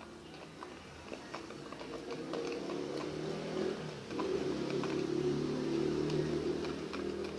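Slime mixture of glue, foam and activator being stirred as it clumps, giving sticky wet clicks and squelches. A low steady hum rises in the background about halfway through.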